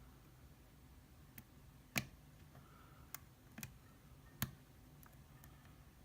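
A diamond pick working the pin stack of an Abus 80TI/50 titalium padlock under light tension makes small, sharp metallic clicks at irregular intervals. The two loudest come about two seconds in and midway.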